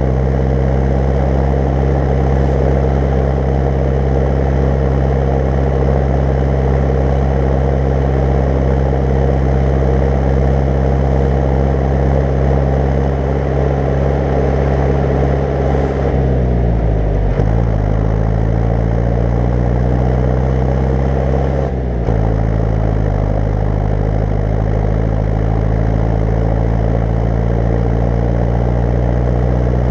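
Zetor 10145 tractor's four-cylinder turbo diesel running steadily on the road while pulling an 8 m³ slurry tanker. About halfway through the engine note drops and climbs back up, and it dips briefly once more a few seconds later.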